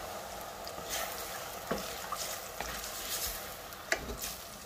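Eggs and chopped vegetables sizzling softly in a stainless steel frying pan while a wooden spatula stirs them, with a few light knocks of the spatula against the pan.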